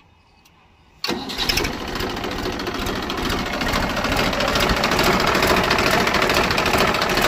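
Massey Ferguson 1035 DI tractor's three-cylinder Simpson diesel engine fires on the electric self-starter about a second in and runs on at a steady clattering idle, growing slightly louder over the next few seconds.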